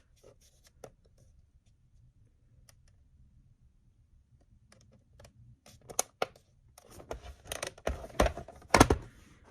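Light clicks and taps from handling a small digital scale and pressing its buttons, a few faint ones at first, then a busier run of louder clicks and knocks in the last few seconds.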